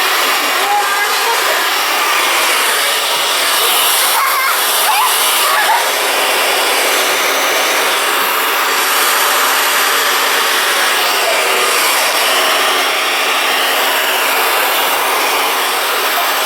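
Handheld hair dryer running steadily on its faster setting: an even rush of blown air over a faint motor hum.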